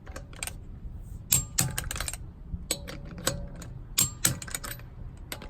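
Gedore Torcofix torque wrench set to 75 clicking on a car's wheel lug nuts: about a dozen sharp, irregular clicks, some in quick pairs, the wrench's release signalling that the set torque is reached.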